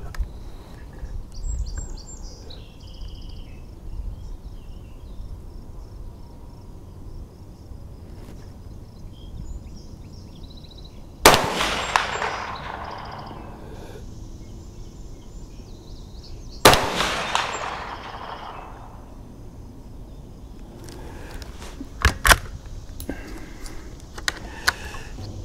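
Two shots from a Mossberg 640K bolt-action .22 Magnum rifle, about five seconds apart, each ringing out and fading over a second or two. Near the end come a few sharp clicks.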